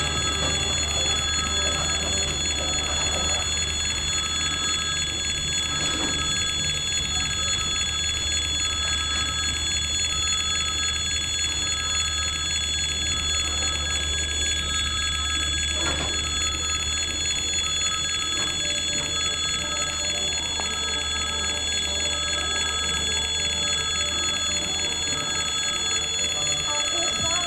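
Russian level crossing's electric warning bell ringing continuously with a fast, even trill, over a steady low hum.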